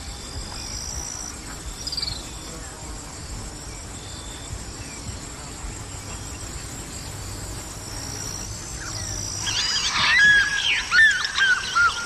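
Insects chirping in short, high, repeated notes over a steady background hum. About nine and a half seconds in, loud, rapid whistled bird calls break in and keep going.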